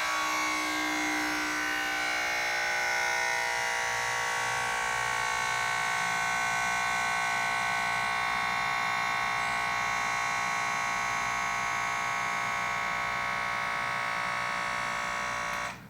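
Motorcycle air-ride suspension's 12-volt air compressor running to air the bike up, switched on by remote. It runs steadily after settling in pitch over the first couple of seconds, then cuts off suddenly near the end when switched off.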